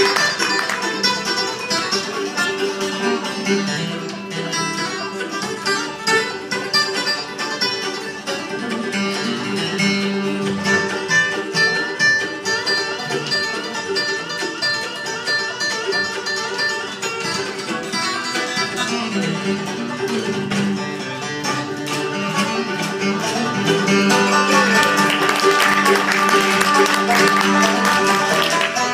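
Bluegrass string band playing an instrumental on upright bass, five-string banjo, acoustic guitar and mandolin. It grows louder near the end.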